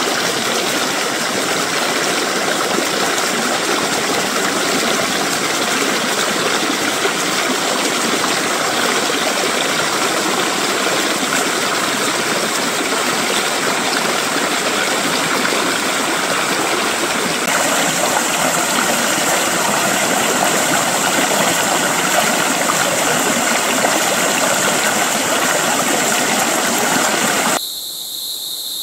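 A shallow stream rushing and splashing over rocks in a loud, steady wash of water. About a second before the end it cuts off suddenly, leaving a quieter steady high-pitched drone of insects.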